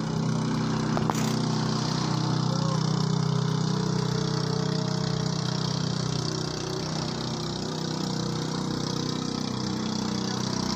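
Small engine of a motorized outrigger boat running steadily as it passes offshore, an even low engine note with little change in speed.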